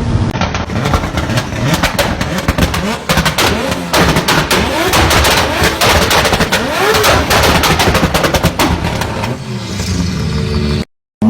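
A tuned car's exhaust popping and crackling in rapid volleys over the running engine. Near the end the pops thin out, leaving the engine running, and the sound cuts off suddenly just before the end.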